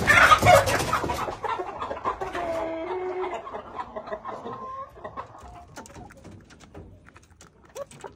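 A flock of barnyard chickens clucking and calling, loudest in the first second or so, then trailing off into scattered quieter clucks and faint clicks.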